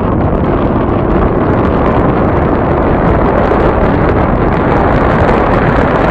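Strong wind buffeting the microphone: a loud, steady, deep rush of noise.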